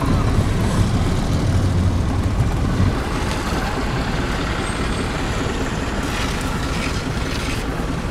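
Engine and road noise of a moving vehicle heard from inside the cabin: a steady low rumble that eases a little about three seconds in.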